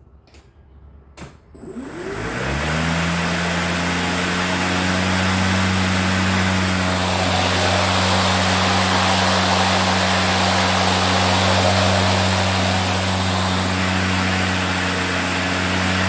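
EGO Power+ 56-volt 21-inch cordless electric lawn mower: a couple of clicks from its start lever, then the motor and blade spin up about a second and a half in. It settles into a steady hum with rushing air from the spinning blade.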